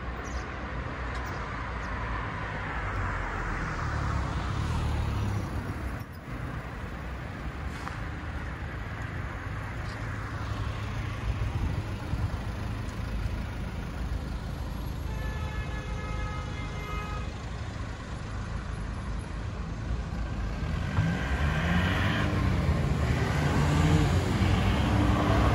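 Road traffic: cars and trucks passing by on a busy city street. It grows louder near the end as vehicles go by close.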